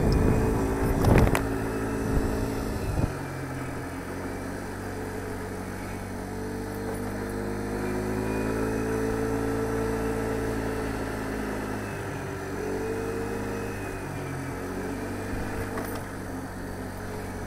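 Moped engine running on the move, its pitch rising and falling with speed. A couple of sharp knocks come in the first three seconds.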